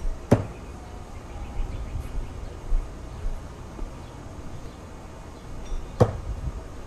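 Heavy steel throwing knife (Kim Vitaly Tantogata, small, 220 g) striking and sticking in a wooden target board, a sharp hit with a short ring. A second, similar sharp knock comes about six seconds in.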